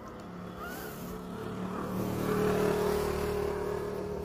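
A motor vehicle passes, its engine hum and road noise swelling to a peak a little past halfway, then fading.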